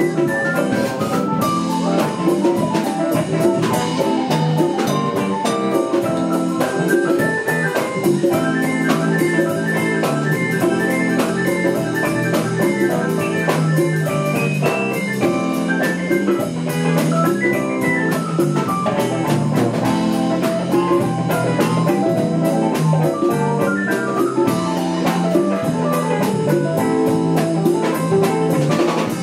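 Live jazz-funk band playing an instrumental passage with no singing: drum kit keeping a steady beat under bass and keyboards, with a melodic solo line rising and falling above them.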